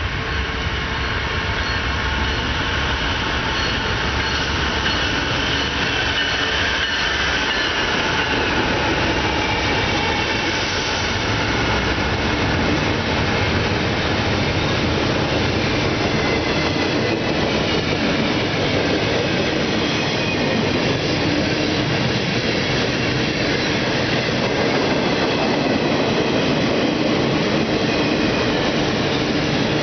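BNSF double-stack container freight train rolling past at steady speed, a continuous rumble of wheels on rail with faint wheel squeal, mixed with heavy rain. Some pitched sounds fall in pitch during the first several seconds.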